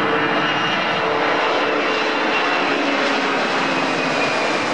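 Boeing 767 airliner's two jet engines at takeoff thrust as it lifts off and climbs away: a loud, steady roar with faint whining tones that slide slowly lower.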